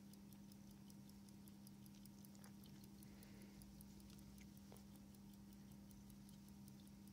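Faint, fast, even ticking of an early-1900s Omega pocket watch, about five ticks a second, over a steady low hum.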